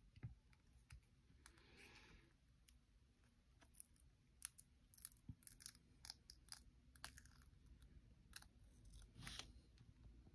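Near silence broken by faint scattered clicks and two brief soft rustles: small plastic Beyblade parts being handled with care.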